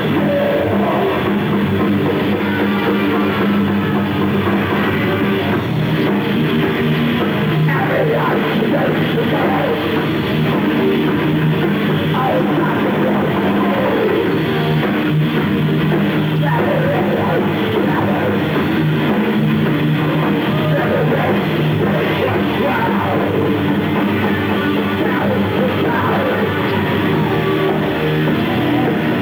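Thrash metal band playing live: distorted electric guitars and a drum kit at full volume, without a break.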